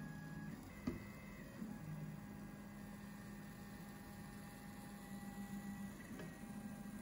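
Stepper motors of a CNC hot-wire foam cutter whining as they drive the wire along the cut. They hold several steady tones that shift in pitch every few seconds as the speed and direction change. There is a faint click about a second in.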